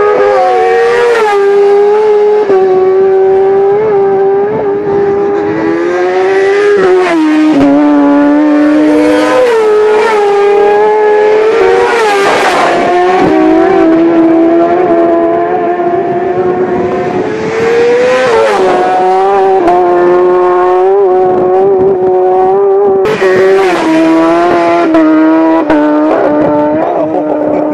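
Racing motorcycle engines at high revs, several bikes passing one after another. The engine pitch climbs and drops in steps with gear changes, and each bike comes up loud as it sweeps past.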